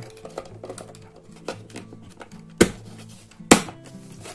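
Background music under small plastic clicks and two sharp knocks about a second apart, past the middle: a quartz clock movement being pressed into its seat in a plastic wall-clock case.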